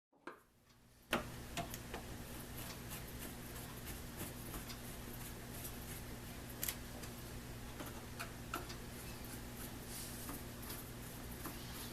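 Scattered light clicks and taps of small parts being handled at a workbench, irregular and a second or more apart, over a steady low electrical hum.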